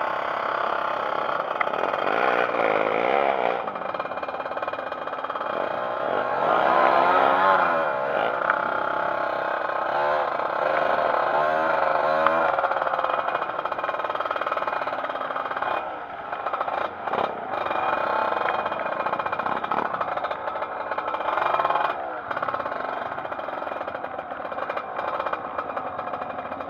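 Trail motorcycle engine revving up and down over and over, its pitch rising and falling.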